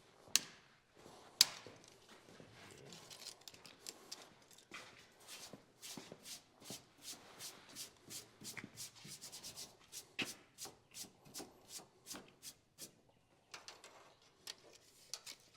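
Pen or soapstone marking lines on the sheet-metal floor of a pickup: short scratchy rubbing strokes, about two to three a second, with two sharp clicks near the start.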